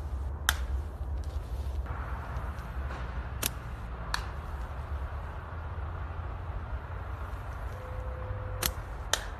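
Slingshot shots with flat rubber bands: sharp cracks about a second in, a second cracks near the middle, and a third near the end. Each of the last two cracks is followed by another sharp crack about half a second later. All of it sits over a steady low rumble.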